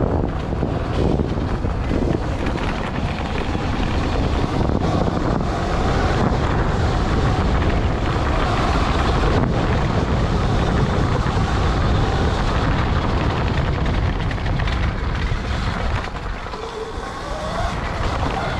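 Wind rushing over the microphone as a pit bike is ridden around a dirt track, with the bike's running noise beneath; it eases briefly near the end.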